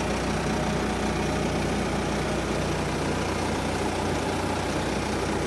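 Antonio Carraro 10400 TRG tractor's four-cylinder turbo-intercooled Mercedes diesel engine idling steadily.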